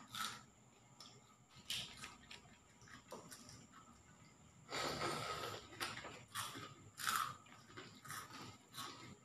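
Small clicks and crackles of boiled balut eggshells being cracked and peeled by hand, mixed with chewing. A louder breathy noise comes about five seconds in, and a shorter one near seven seconds.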